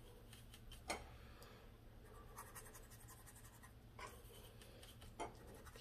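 Faint scratching of a paintbrush mixing watercolour paint on a plastic palette lid, with a few small clicks.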